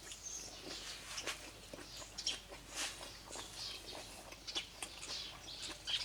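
Faint chewing and small mouth clicks of someone eating a bite of food, with birds chirping in the background.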